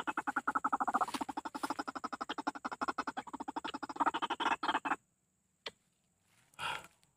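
White-breasted waterhen calling: a fast, even run of pulsed calls, about ten a second, that stops abruptly about five seconds in. A sharp click and a short thud follow near the end.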